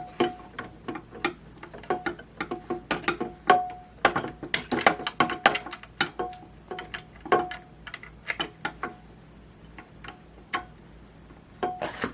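Irregular clicks and knocks of MaxiClimber Classic rollers and parts being worked into the machine's track by hand, some of the knocks leaving a short ringing tone.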